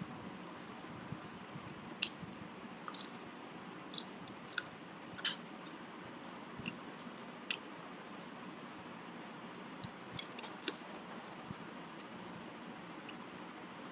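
Irregular light clicks and ticks, a dozen or more scattered through the stretch with the sharpest cluster about three seconds in, over a steady low room hum.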